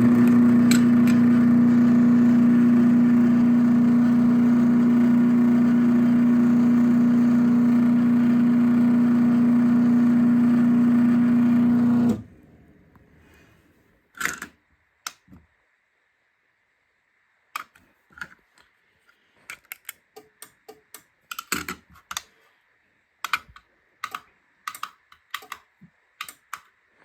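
Craftsman 1/2 hp chain-drive garage door opener (model 139.53930DM) running with a steady hum as it opens the door, stopping abruptly after about twelve seconds. Scattered light clicks and taps follow.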